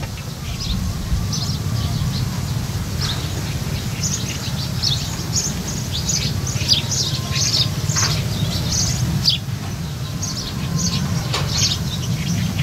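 Small birds chirping in many short, quick calls, scattered irregularly, over a steady low rumble.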